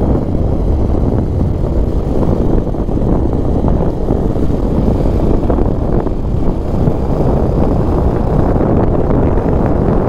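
Bajaj Pulsar 220F motorcycle on the move: steady wind rumble buffeting the camera microphone, mixed with the bike's engine and road noise.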